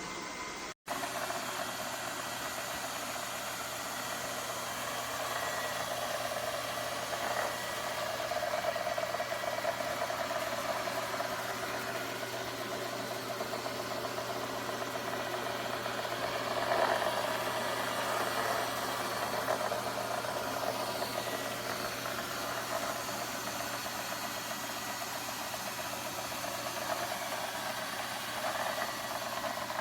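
Lefant M210 Pro robot vacuum running: a steady whirr from its suction motor and brushes, swelling slightly now and then.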